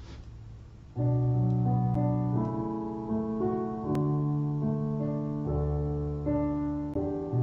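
Piano starts playing about a second in: slow music with long held chords and a melody over them.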